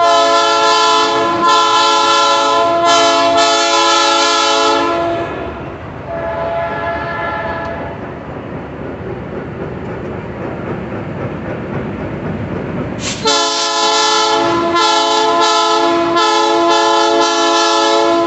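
Diesel locomotive air horn sounding a chord in long blasts as the train passes close by: one lasting about five seconds with two brief breaks, a fainter one around six seconds in, then another long series with short breaks from about thirteen seconds in. Between the blasts the train's wheels rumble on the rails.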